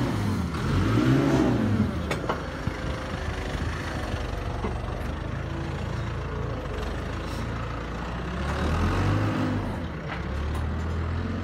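An engine running, revving up and easing back down twice: once about a second in and again near the end.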